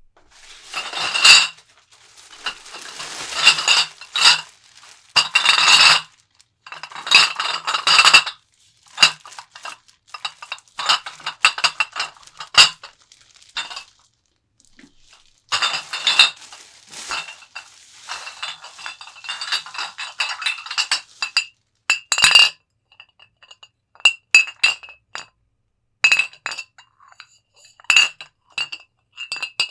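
Empty glass bottles clinking and rattling against one another as they are packed and unpacked, each knock ringing briefly. Bunches of jostling clinks come first, thinning to separate single clinks near the end.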